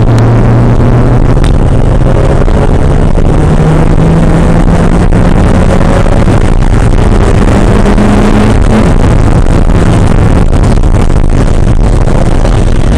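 Porsche 968's four-cylinder engine running hard and very loud. Its note holds steady for a couple of seconds, then climbs steadily through the revs, drops abruptly about nine seconds in as at a gear change or lift, and runs on less distinctly.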